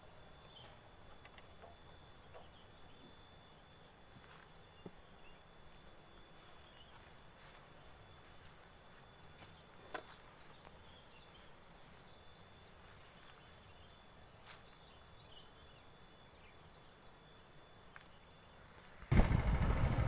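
Faint rural outdoor ambience with thin, steady high-pitched tones and a few faint clicks. About a second before the end, a loud low rumble of a vehicle engine and wind on the microphone cuts in suddenly.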